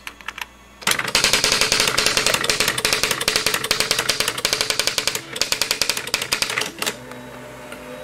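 Olivetti RT 5400 electronic daisy-wheel typewriter printing a stored line from its memory in justified mode: about a second in, a rapid dense run of print-wheel strikes starts and lasts about six seconds, followed by a short steady motor whir near the end.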